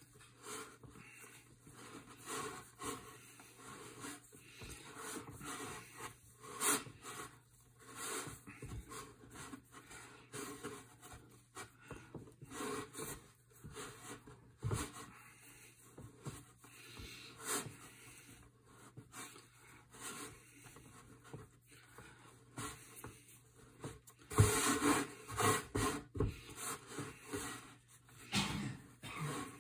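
Pasta dough of semolina, flour and egg being kneaded by hand on a floured wooden board: irregular rubbing and pushing strokes as the dough is pressed and folded against the wood. The strokes grow louder for a couple of seconds near the end.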